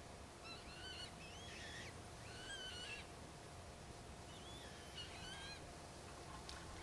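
Birds calling in the distance: short calls that rise and fall in pitch, in four or five separate bouts.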